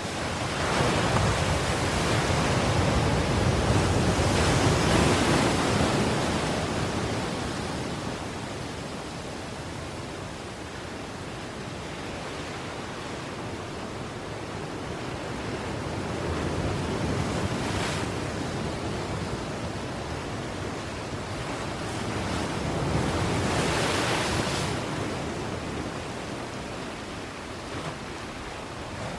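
Ocean surf: a steady rush of waves that swells louder and ebbs back several times, as waves wash in.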